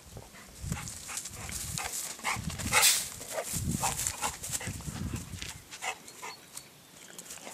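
A large dog, a boerboel, panting and snuffling close by: a run of short breathy sounds, several a second, mixed with rustling and low rumble. It thins out about two-thirds of the way in.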